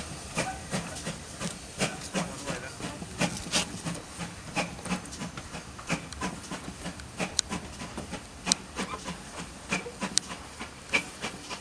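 Steam locomotive pulling away, its exhaust beating unevenly over a hiss of steam. A few sharp clicks stand out above it, the loudest about seven and a half, eight and a half and ten seconds in.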